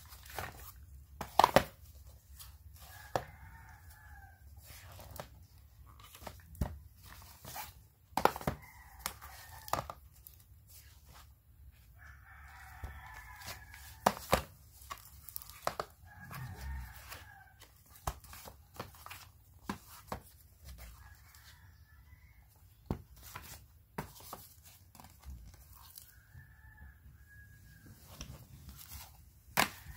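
Cardboard board books being handled, picked up and set down, with sharp knocks and rustles. Between the knocks a rooster crows about six times, quieter than the knocks.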